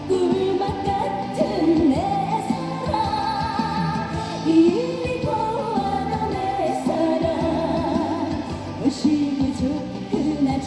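A woman singing a trot song live into a microphone over band accompaniment, her held notes wavering with vibrato.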